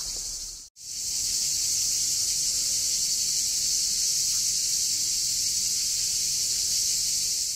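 Chorus of cicadas buzzing: one steady, high-pitched hiss that cuts out for an instant under a second in.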